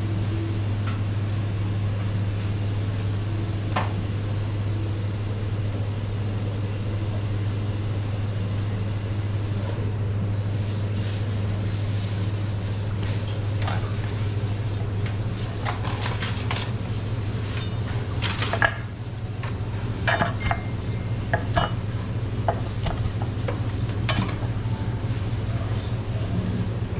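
A steady low hum runs throughout. From about ten seconds in, a knife and a metal spatula knock, tap and scrape on a wooden cutting board as a skewered grilled eel is cut, with light metal clinks among them. The sharpest knock comes a little past halfway.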